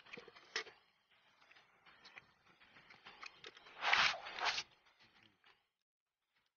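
Handling noise from a hand rubbing and brushing over the phone's microphone: soft scattered rustling, with two louder scratchy bursts about four seconds in.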